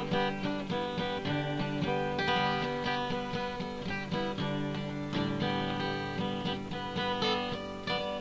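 Instrumental background music on a strummed and plucked string instrument, played dulcimer style.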